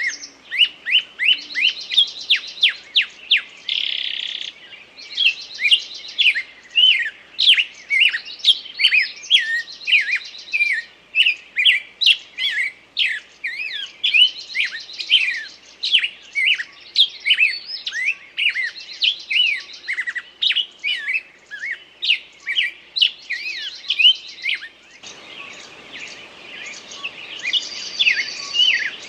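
Forest songbirds singing together: a dense chorus of quick repeated chirps and high trills. About twenty-five seconds in, a soft low hiss of noise joins underneath.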